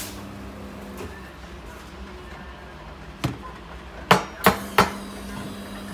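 Syrup bottles knocking against a counter and each other as they are handled: one sharp knock about three seconds in, then three more in quick succession, over a steady low hum.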